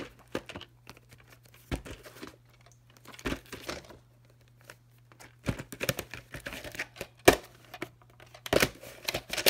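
Plastic clamshell VHS case handled and turned over on a bed: irregular rustling and scraping with scattered plastic clicks, one sharp loud click about seven seconds in. A faint steady low hum runs underneath.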